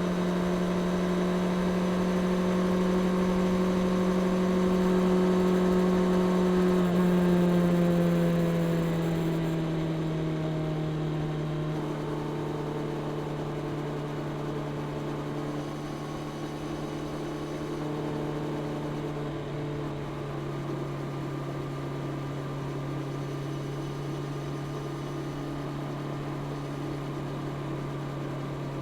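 Honda CB650R's inline-four engine through its stock exhaust, heard riding at steady revs. The pitch rises slightly, then drops about eight seconds in and settles lower and a little quieter.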